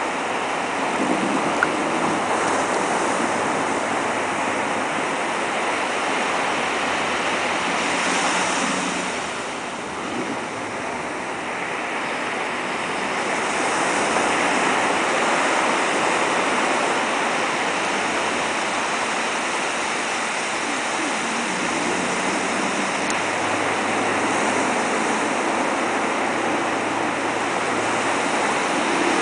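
Ocean surf breaking and washing in a steady rush of water noise, easing briefly about a third of the way through, with a faint low hum of the dory's outboard motor at times.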